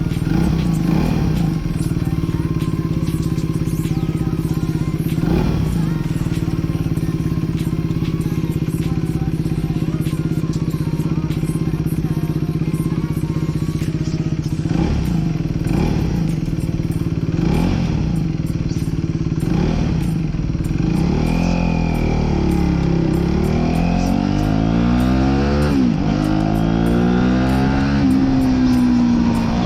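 Aprilia RS4 125's single-cylinder four-stroke engine running at steady revs, then, about two-thirds of the way in, revving up and dropping back several times as the bike accelerates through the gears.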